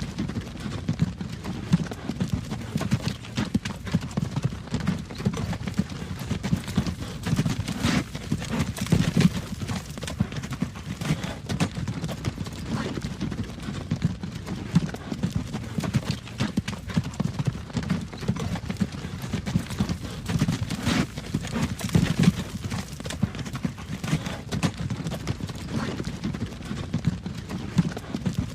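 Horse hooves clip-clopping at a steady walk on a hard road, pulling a wagon.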